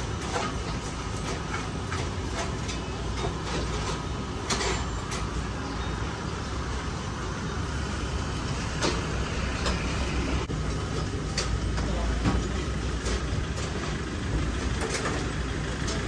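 Outdoor street ambience: a steady low rumble of vehicle engines, with faint voices and occasional brief clatters.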